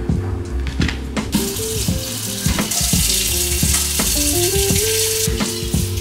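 Kitchen faucet running into the sink, starting about a second in and stopping near the end, over background music.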